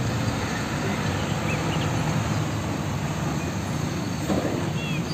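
Diesel engine of a UD Trucks Quester fuel tanker truck running as the truck drives slowly past, a steady low rumble.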